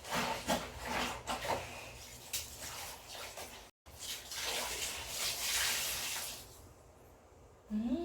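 Water splashing and running off hand-washed laundry as it is handled in a basin, with a steadier run of splashing after a short break; it fades quieter near the end.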